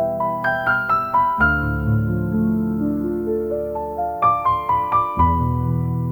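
Soft, relaxing instrumental music: held low chords under a slow melody, with two quick rising runs of bright, ringing notes, one about half a second in and one about four seconds in.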